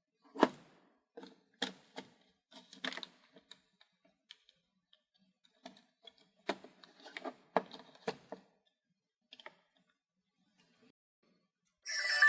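Sharp clicks and small knocks from a Sony DSC-HX20V compact camera being handled and tried out, its buttons being pressed, in two clusters of separate clicks. A louder short sound with steady tones comes right at the end.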